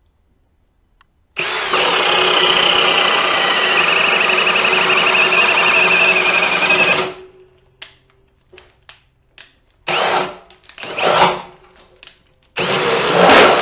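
Ridgid Octane cordless hammer drill boring a 1.5-inch spade bit through a 4x4, running steadily under load for about five and a half seconds with its pitch sagging slightly toward the end of the cut. A few scattered clicks follow, then three short bursts of the drill near the end.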